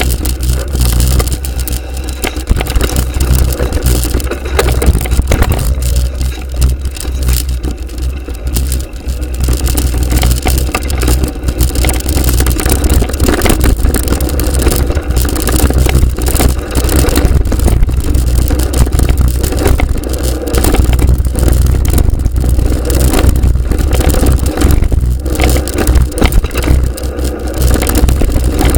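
A bike ride down a rough dirt trail heard through an action camera's microphone: a continuous low rumble of wind buffeting with constant rattling and crunching from the tyres and the bike jolting over the ground.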